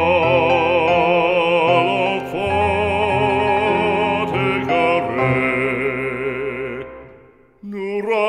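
Background music in an operatic style: a sustained melody with heavy vibrato over held accompaniment. It fades away about seven seconds in, and a new phrase starts just before the end.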